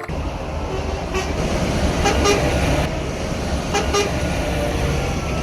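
Truck engine running steadily with a low rumble, with a few short toots partway through.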